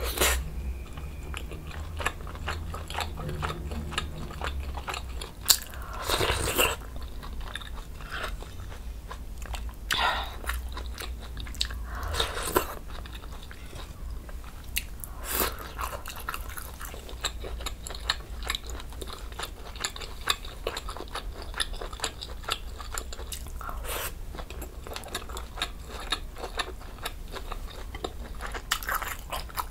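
Close-miked chewing of budae jjigae, a big spiced meatball and stew ingredients, full of small wet mouth clicks, with a few louder bites spread through.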